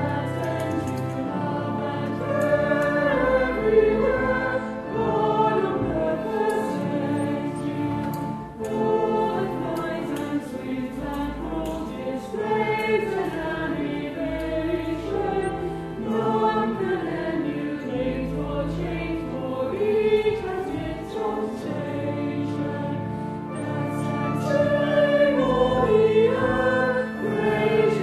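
A choir singing sacred music over held low notes of accompaniment.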